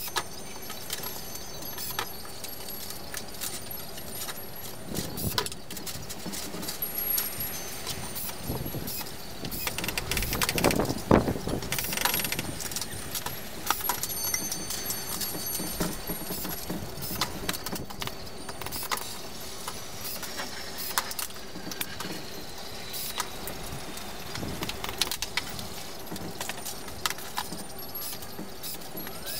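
Metal wire being handled and dragged across a plywood tabletop: scattered clicks, jingles and scrapes, with a louder stretch of rustling about ten seconds in. A steady low hum runs underneath.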